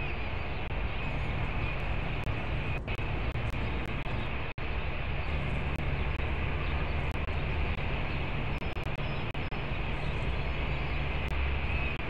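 Steady low rumble and hiss of urban background noise, traffic or rooftop machinery, picked up by a nest-box camera microphone. A faint, wavering high tone comes in near the end.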